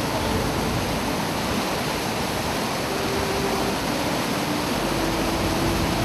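Floodwater pouring over and through a broken earthen bank, a steady rushing of water.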